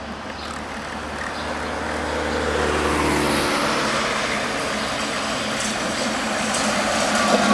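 Tatra KT4D tram running along street track toward the listener, mixed with passing road traffic, growing louder; a faint whine comes in near the end.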